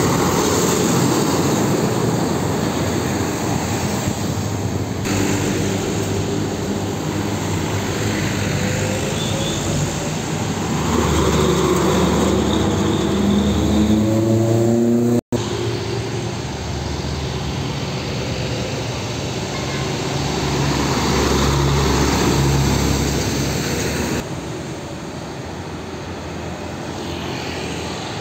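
Heavy diesel trucks and road traffic passing. About halfway through, a truck's diesel engine climbs steadily in pitch as it accelerates, then the sound breaks off abruptly and the traffic noise carries on.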